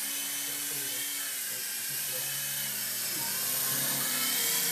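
Micro RC helicopter's small motors and rotor blades whining in flight, the high pitch wavering up and down as it manoeuvres and getting a little louder near the end.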